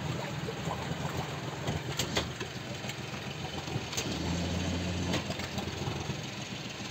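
Outboard motor of a small fishing boat running slowly at low revs: a steady low hum that swells briefly about four seconds in, with a few light knocks.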